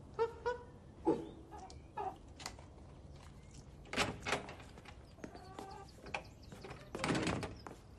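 A hen clucking in a few short calls, then a few light knocks and a brief rustling burst near the end.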